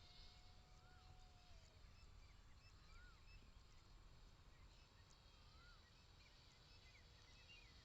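Faint outdoor quiet with birds calling: one bird repeats a short rising-and-falling note about every two and a half seconds among other faint chirps. A faint steady hum drops in pitch about a second and a half in.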